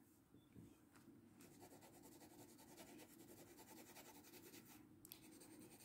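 Faint scratching of a felt-tip marker colouring on a paper colouring-book page, in quick back-and-forth strokes. It starts about a second and a half in and stops shortly before the end.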